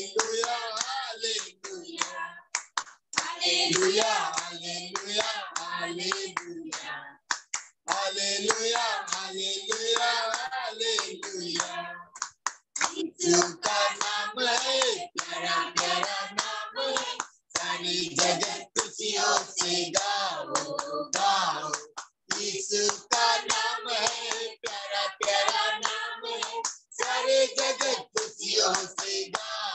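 A small group of women singing a worship song together while clapping their hands along to it, heard over a video call.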